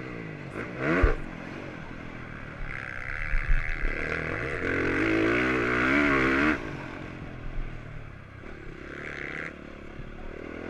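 Motocross bike engine heard from the bike's own onboard camera, revving up and down as the rider works the throttle. It is held at high revs for a few seconds in the middle, then drops off sharply about six and a half seconds in.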